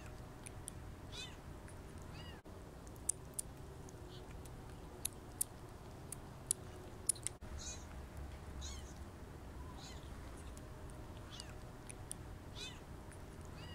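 A very young kitten mewing in short, high-pitched cries, about eight times, with a handful of sharp clicks in the middle.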